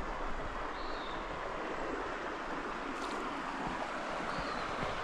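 Steady rush of running water, with two faint short high chirps, about a second in and near the end.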